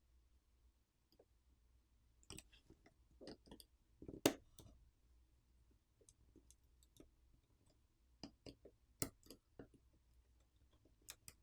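Scattered small clicks and taps of a hand tool and fingers on the hardware wallet's internals, as the flex-cable connector latches are opened and the cables pulled free. The sharpest click comes about four seconds in.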